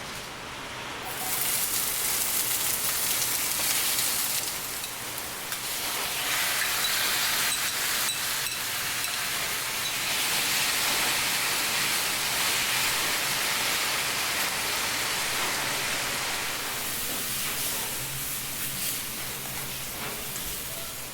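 Steady rain falling, a dense hiss with fine patter that swells in about a second in.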